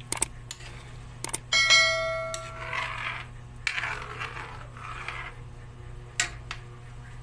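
Metal kitchenware clinking against a cooking pot: a few light clicks, then one strike about one and a half seconds in that rings out like a bell for about a second, followed by softer handling noise and another click near the end.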